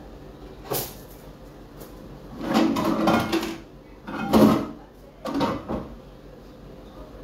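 Kitchen clatter as a frying pan and utensils are handled: a knock, then about a second of rattling and scraping, the loudest knock a little after the middle, and two more knocks soon after.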